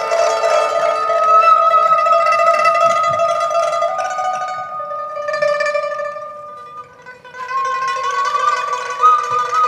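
Biwagaku music: a biwa lute plucked under long, held, slightly wavering high notes, with a brief lull about seven seconds in.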